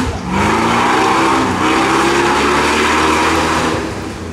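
Off-road 4x4's engine revving hard under load, its pitch climbing over the first second and then holding high, with a loud exhaust roar. The sound fades out near the end.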